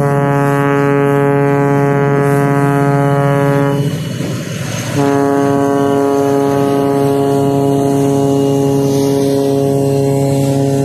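Air horn of a 3TE10M diesel locomotive, two long blasts of a steady chord: the first cuts off just before 4 seconds in, the second starts about a second later and is held on.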